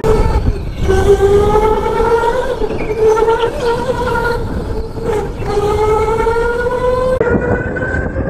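Electric go-kart motor whining at speed, its pitch climbing as the kart accelerates and dropping away briefly twice as it slows for corners, over a low rumble from the kart running on concrete.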